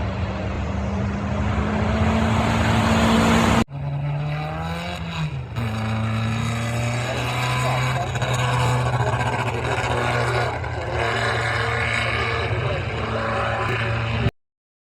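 Classic racing engine held at steady, slowly rising revs. Then an abrupt cut to another engine running at lower, fairly steady revs, with a brief drop in pitch about five seconds in. The sound cuts out abruptly just before the end.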